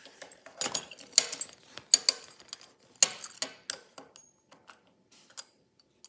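Coach signature metal belt buckle clicking and clinking as it is handled against a stone countertop: several sharp clicks in the first three seconds, then a few sparser light ticks.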